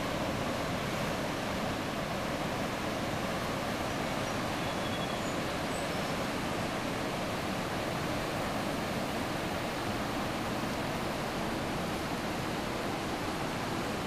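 River rapids rushing steadily: the Lachine Rapids of the St. Lawrence, a constant, unbroken wash of whitewater noise.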